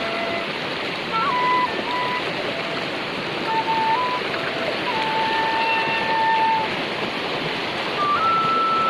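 A flute playing a slow melody of long held notes, sliding between some of them, over a steady loud noise of water.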